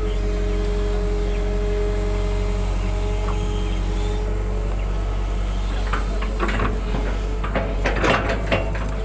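Excavator's diesel engine running steadily, with a held whine in the first half. From about six seconds in there is a series of sharp knocks and clanks, loudest about eight seconds in.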